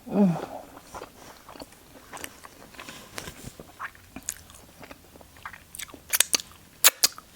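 Close-miked eating: biting and chewing a mouthful of food, with crunches and wet mouth smacks and clicks, and two or three sharp loud smacks near the end. A brief low hum-like vocal sound comes right at the start.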